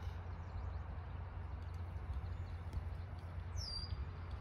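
Quiet open-air ambience: a steady low rumble with a faint hiss above it, and one short high chirp about three and a half seconds in.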